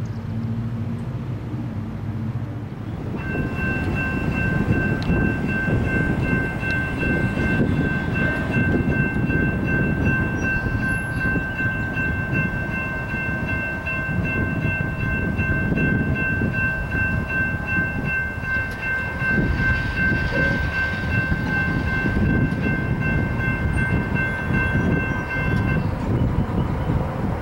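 Railroad grade-crossing warning bell ringing steadily for about twenty seconds, signalling an approaching train as the crossing gates come down. It starts a few seconds in and stops shortly before the end, over a steady low rumble.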